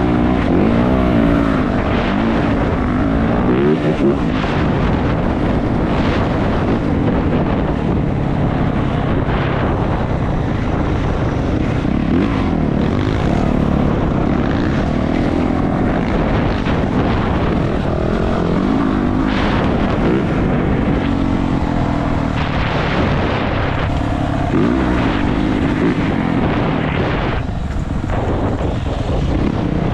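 450cc four-stroke dirt bike engine running while being ridden, its revs rising and falling over and over.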